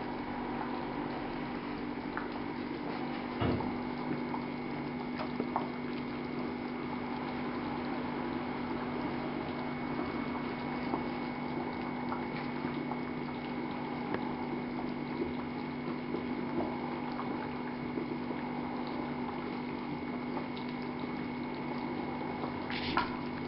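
Vegetable stew bubbling and simmering in an uncovered aluminium pot, with scattered small pops, over a steady low hum.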